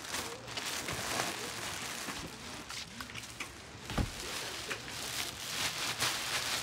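Clear plastic garment cover rustling and crinkling as a coat on a hanger is handled, with a single low thump about four seconds in.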